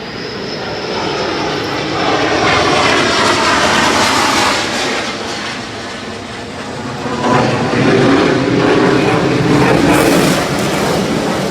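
Loud rushing engine noise of an aircraft passing overhead, swelling, easing off briefly, then swelling again. A faint high whine slides slowly down in pitch near the start.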